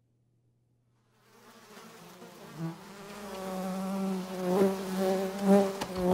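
A fly buzzing: a steady droning buzz that fades in from silence about a second in and grows louder, swelling and dipping as the fly moves about.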